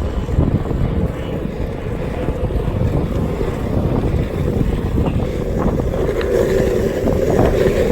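Wind buffeting the microphone over the steady rumble of skateboard wheels rolling on pavement.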